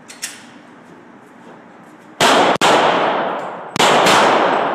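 Handgun shots fired on an indoor range: a quick pair about two seconds in, then a third about a second later, each very loud and followed by a long echoing tail off the range's hard walls.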